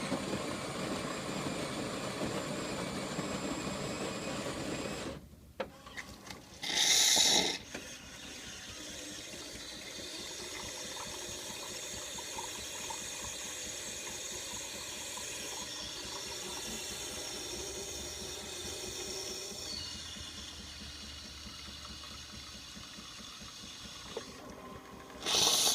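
Miele built-in coffee machine brewing: its grinder runs for about five seconds, then after a short loud hiss the pump runs steadily while coffee pours, with another brief hiss near the end.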